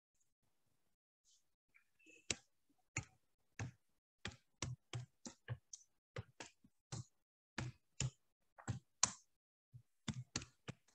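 Typing on a computer keyboard: slow, uneven keystrokes, about two or three a second, starting about two seconds in.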